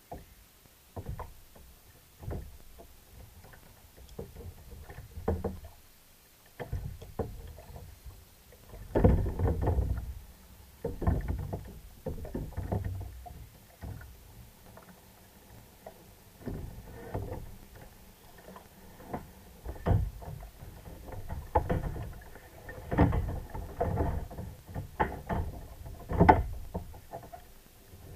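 Choppy water slapping and knocking against a plastic sit-on-top kayak hull: irregular thumps and splashes, heavier in a few clusters.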